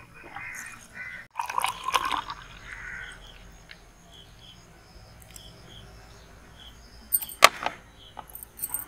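Crows cawing in the background during the first two seconds, with faint chirps after, then a couple of sharp knocks near the end.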